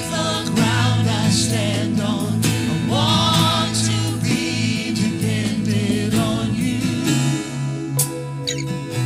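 Live worship band: several singers singing a slow song together with vibrato over guitars. The voices drop out about halfway, leaving the band playing.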